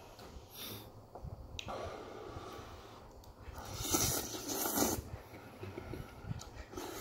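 A person slurping instant ramen noodles from budae-jjigae stew: a long, loud hissing slurp about halfway through, after a shorter one about two seconds in.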